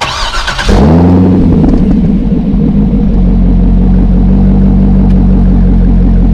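C6 Corvette's LS V8 starting up through a Borla Stinger cat-back exhaust with X-pipe: a brief burst of starter cranking, then the engine catches, flares up in revs and drops back within about a second, and settles into a steady idle.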